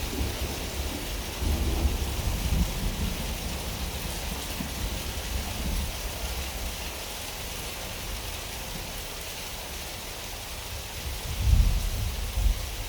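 Steady heavy rain hissing, with low rolling thunder: a rumble about a second and a half in that fades over a couple of seconds, and a louder peal near the end.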